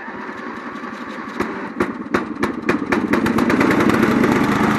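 Riding lawnmower engine catching after a start: it runs rough with irregular pops and sputters, then picks up and settles into steady running about three and a half seconds in.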